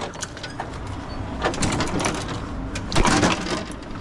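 Loaded metal hand truck rattling and clunking as it is wheeled through a shop doorway, with a couple of louder knocks, one about a second and a half in and one near three seconds.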